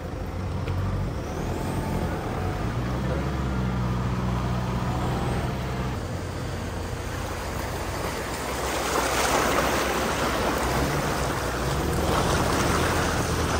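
Off-road vehicle engine running as it drives along a muddy, rain-damaged track. About eight seconds in, a loud rushing noise joins it and carries on.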